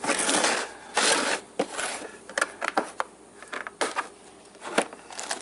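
A hard plastic tool case being handled on a workbench: rubbing and scraping noise at first, then a series of sharp clicks and knocks as the case is worked open.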